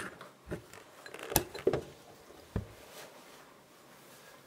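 An electric hand mixer and a glass mixing bowl being handled and set down on a kitchen counter: a few separate knocks and clinks, the sharpest about a second and a half in. The mixer is not running.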